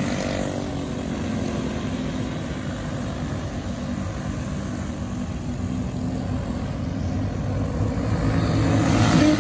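A field of racing karts' small single-cylinder engines running at speed around the track in a steady drone. It grows louder near the end as the pack comes closer.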